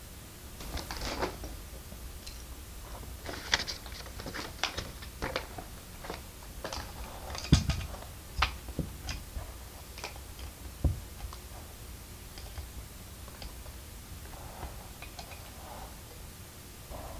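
Small plastic LEGO pieces clicking and rattling as they are handled and pressed together, with two duller knocks around the middle. The clicking thins out to a few faint ticks in the latter part.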